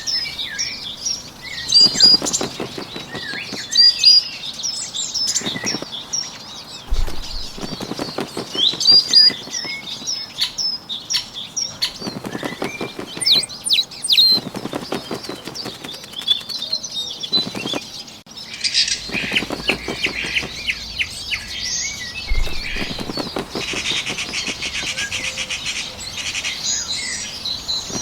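Small birds chirping, with bursts of fluttering wing flaps every couple of seconds. Near the end a fast, even insect-like trill joins in.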